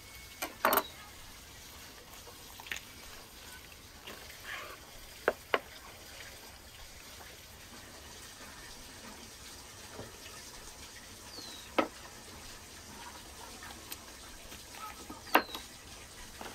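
Knife cutting up a whole roast chicken on a wooden cutting board: a handful of sharp knocks a few seconds apart as the blade chops through and strikes the board, over a steady hiss.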